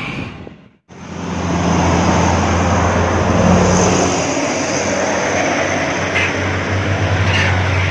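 Heavy diesel tanker truck's engine running close by, a loud, steady low drone over road noise, starting after a brief break about a second in.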